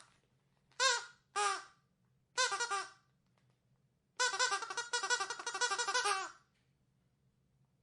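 Rubber squeaky dog toy being squeezed. There are two short squeaks about a second in, a quick fluttering squeak near three seconds, then a rapid run of squeaks lasting about two seconds.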